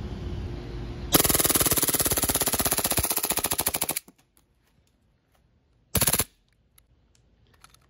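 Elite Force (Umarex) green-gas blowback airsoft Glock 18C pistol firing on full auto: a rapid burst of shots lasting about three seconds that starts about a second in, then a second brief burst about two seconds later.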